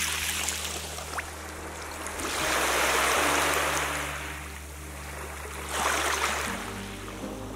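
Small waves washing up a sandy beach over shells and drawing back, one long surge about halfway through and a shorter one near the end, over soft background music.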